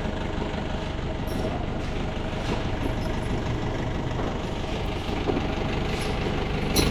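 A vehicle engine idling steadily, a low even rumble, with a sharp click near the end.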